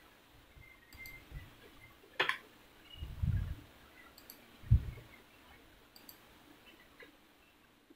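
Several sharp computer mouse clicks, spaced out, with a couple of dull low thumps between them, the second thump the loudest sound.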